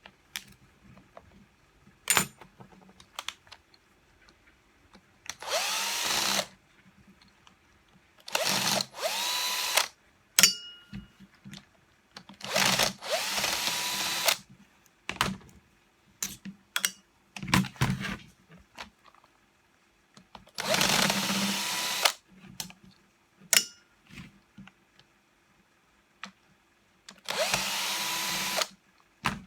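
Electric screwdriver backing out screws in short bursts of about a second each, the motor whine rising at the start of each burst, with small clicks and knocks of screws and parts being handled in between.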